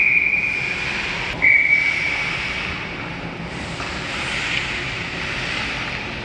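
Ice hockey referee's whistle blown twice, a steady shrill tone: the first blast ends about half a second in, the second starts about a second and a half in and lasts about a second, signalling a stoppage of play before a faceoff. Steady hiss of arena noise underneath.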